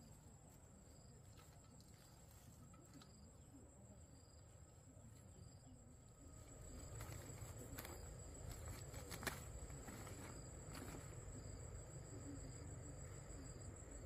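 Faint steady high-pitched insect trill, with a shorter chirp repeating about once a second over it. From about halfway in, quiet rustling and scattered sharp knocks join it.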